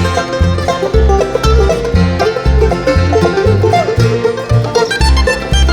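Bluegrass band playing an instrumental break between verses, banjo to the fore over guitar and a steady walking bass line.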